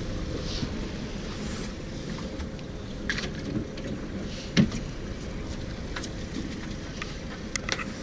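A small fishing boat's outboard motor idling as a steady low rumble, with a few short knocks and clicks around the middle and near the end.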